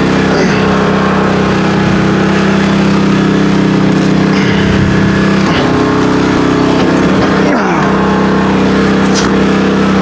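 Large engine running steadily, its pitch sagging briefly a few times as it takes load.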